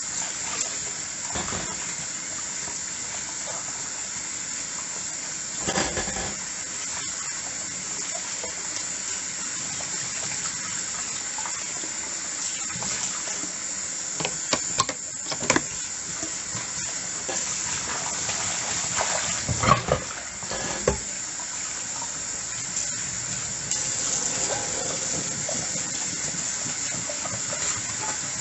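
Kitchen tap running steadily into a sink while dishes are washed, with a few knocks and clinks of dishes in between, the loudest about two-thirds of the way through.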